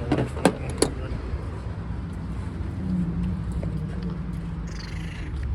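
Hand tools and parts clinking against the engine while it is taken apart: three sharp clicks in the first second, over a steady low rumble, with a brief hiss near the end.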